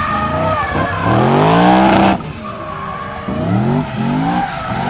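Race car engine sound effect revving in rising sweeps: one long rev about a second in, then two shorter revs after three seconds.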